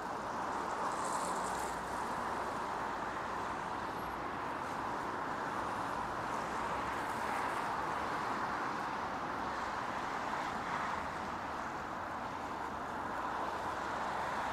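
City street ambience: a steady wash of road traffic noise, with no single event standing out.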